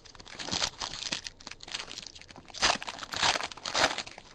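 A foil trading-card pack wrapper being torn open and crinkled by hand: a run of crackly rustles that grows louder in three surges in the second half.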